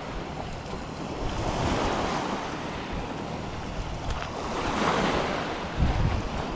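Lake waves washing onto the shore, swelling twice, with wind buffeting the microphone in low rumbling gusts near the end.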